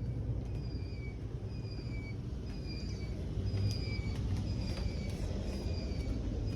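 Steady low mechanical rumble with a short, slightly falling high chirp or beep repeating about once a second.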